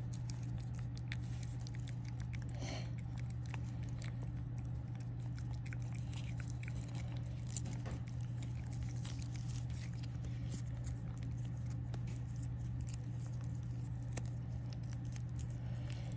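A cat licking paste from a squeeze-tube cat treat, a run of faint, irregular small wet licking clicks. A steady low hum runs underneath.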